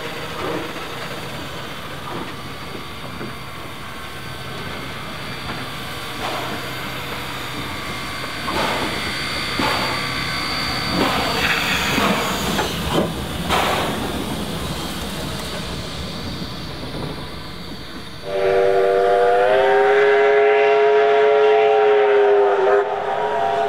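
Ab-class steam locomotive hissing steam from its cylinders, with a few sharp chuffs of exhaust. About 18 seconds in, its steam whistle sounds a loud, steady chord for about four and a half seconds, bending slightly in pitch as it opens and closes.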